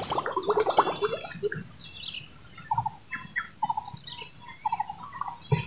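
Birds chirping in short, repeated calls, over a steady high-pitched whine.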